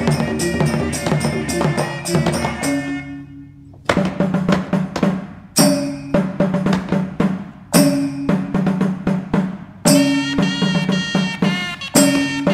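Percussive music with fast drum strokes and ringing pitched tones. About three seconds in it dies away to a fading ring. It then comes back in phrases, each opening with a heavy accented hit, about every two seconds.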